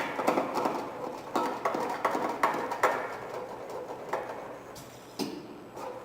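Automatic CNC channel-letter bending machine working metal strip: a run of irregular sharp metallic clicks and clacks over a faint steady hum, thinning out after about three seconds.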